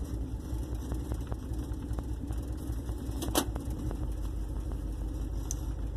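1958 Plymouth Suburban's engine running steadily, with a sharp click about three and a half seconds in.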